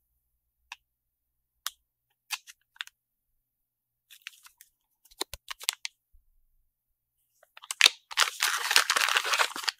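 Plastic packaging bags being handled on a table: scattered light crinkles and taps, then a dense burst of plastic crinkling for about two seconds near the end.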